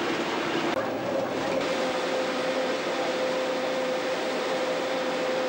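Brill Model 75 railcar under way: steady running noise of the railcar with a steady hum. About a second in the sound changes to a smoother, higher-pitched drone, as heard from inside the driving cab.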